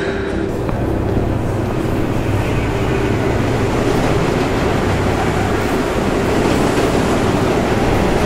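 Steady rumble of a train running, with a low hum in it, growing slightly louder toward the end.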